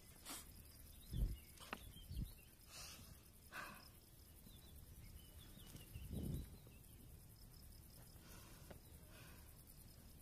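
Quiet room with a few soft low thumps, the loudest about a second in, another near two seconds and a longer one around six seconds, with brief noisy brushes of sound between them.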